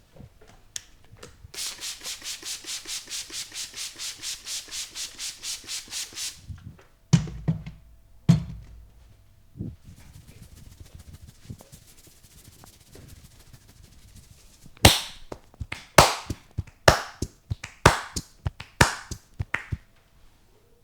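A barber's hands at work in a head massage. First comes fast, even rubbing, about five strokes a second for some five seconds, then two heavy slaps about a second apart. Near the end comes a quick run of sharp, loud snaps.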